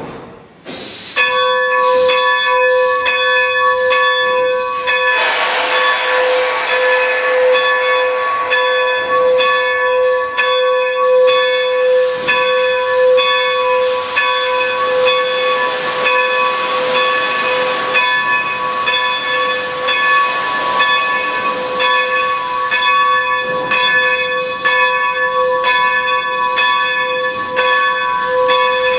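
Bell of the Baldwin 2-10-0 steam locomotive ringing steadily, about two strokes a second, starting about a second in: the warning rung before the engine moves. Hissing steam swells under it for a few seconds from about five seconds in.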